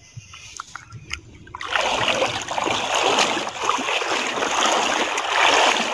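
Shallow river water splashing and sloshing close to the microphone, starting suddenly about a second and a half in and continuing steadily.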